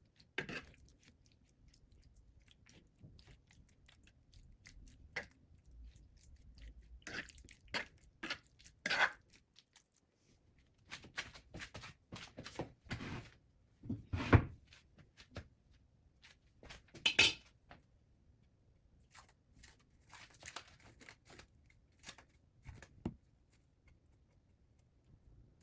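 Irregular wet squishing and crunching with scattered clicks, typical of raw chicken breast being worked by hand with seasoning in a bowl. The loudest sharp sounds come about 14 and 17 seconds in.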